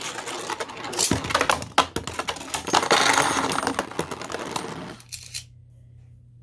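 Two Beyblade spinning tops whirring and clashing in a plastic stadium, with many sharp hits, then falling quiet about five seconds in.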